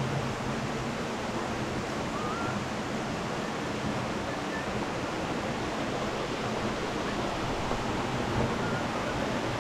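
Steady rush of flowing water, an even hiss that neither rises nor falls, like a waterfall or fast mountain stream.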